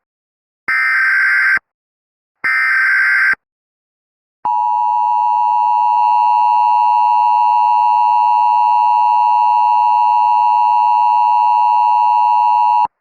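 Emergency Alert System SAME header: two shrill, buzzy data bursts about a second long, each about a second apart. About four and a half seconds in, the steady two-tone EAS attention signal starts and holds for about eight seconds, then cuts off sharply. Together they announce an emergency alert.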